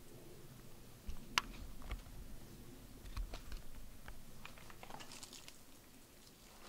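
Faint, irregular light clicks and knocks of loose basalt rock shifting and clinking underfoot, with one sharper click about a second and a half in.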